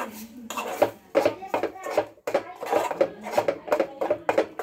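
A person talking; the words are not made out.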